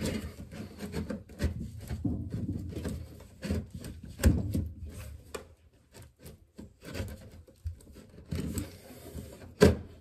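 Handling noise from a sheet-metal dryer duct elbow being worked into a recessed metal dryer vent box: irregular scraping, rattling and knocks of metal on metal, with a sharper knock about four seconds in and the loudest one near the end.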